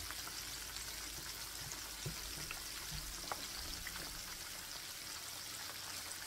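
Flour-coated karaage chicken deep-frying in a pan of oil: a steady crackling sizzle, with a few faint clicks.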